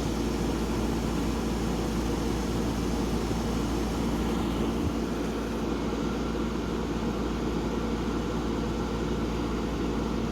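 Hampton Bay 10,000 BTU window air conditioner running steadily on high fan with its compressor on, a constant hum with a droning low tone.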